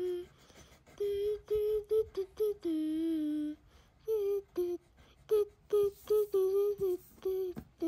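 A child humming or singing wordlessly to herself in short, mostly level notes, with one longer held note about three seconds in.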